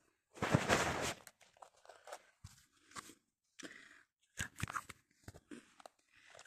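Handling noise of a phone held close: a loud rustle of the microphone rubbing against clothing about half a second in, then scattered small clicks and rustles.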